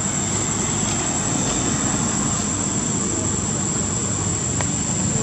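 Steady outdoor background rumble and hiss with a constant high-pitched whine, and no distinct sound standing out.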